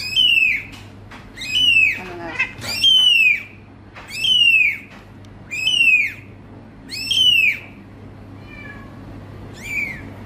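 Very young kitten mewing: a string of high, thin cries, each falling in pitch, about one every second and a half, the last two fainter.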